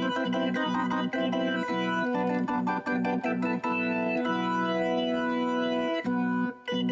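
Background music of organ-like keyboard chords: a run of short, choppy chords, then longer held ones from about halfway, with a brief break near the end.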